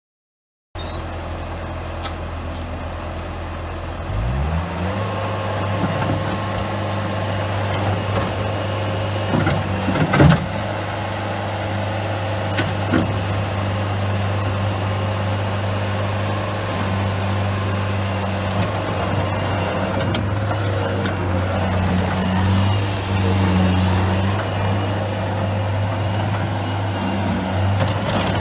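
2008 Bobcat S185 skid steer's four-cylinder diesel engine running steadily, its speed rising about four seconds in. A loud knock comes about ten seconds in.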